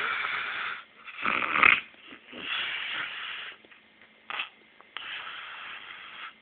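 A man snoring in his sleep: four long snoring breaths, the second the loudest, with a brief sharp sound about four seconds in.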